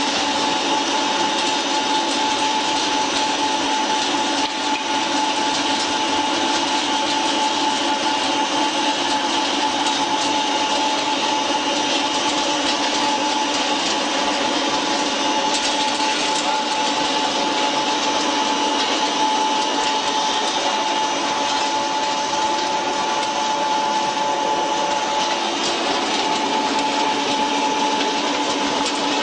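YSKJ sawdust pellet mill running steadily: a continuous machine drone with a steady whine through it.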